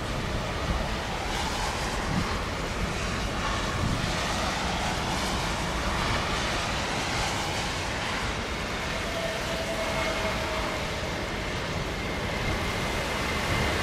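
Steady rushing of wind and rain on the microphone, mixed with the jet engines of a TAP Air Portugal Airbus A320-family airliner touching down and rolling out on a wet runway. A faint, high engine whine comes in about ten seconds in.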